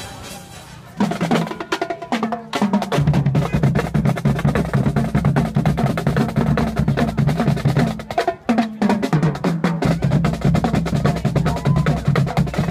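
A marching drumline of snare and bass drums playing a fast, dense cadence of rapid stick strokes over booming low drum beats, with short breaks about two and a half and eight and a half seconds in. A little background music precedes the drums during the first second.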